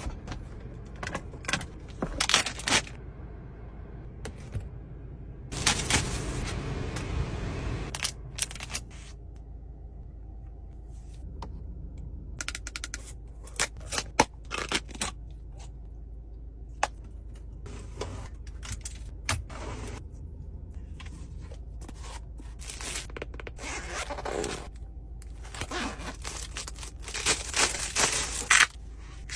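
Close-up handling of small objects and containers: scraping, taps and sharp clicks of plastic lids and items being set down, with a few seconds of steady rustling or pouring about six seconds in and again near the end, over a steady low hum.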